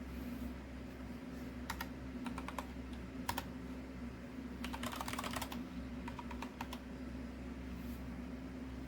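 Keystrokes on a computer keyboard in short irregular bursts, with a quick run of typing about five seconds in, over a steady low hum.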